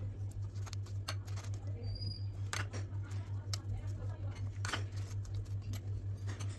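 Light taps and clicks of sauce-dipped burger bun tops being set onto cheese-topped patties in a glass serving dish, over a steady low hum that pulses about five times a second. A short high chirp sounds about two seconds in.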